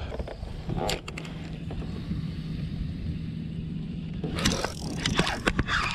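Wind buffeting the microphone on open water, a steady low rumble, with a faint steady hum through the middle. From about four seconds in, a run of sharp clicks and knocks from handling gear on the kayak.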